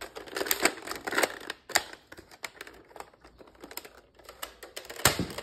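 Repeated plastic clicks and clacks of a Buzz Bee Toys bolt-action toy dart blaster being handled and its bolt cocked, with a sharper snap about five seconds in.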